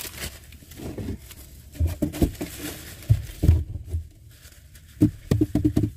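Scattered knocks, clicks and light rustling of things being handled at close range, with a few low thuds.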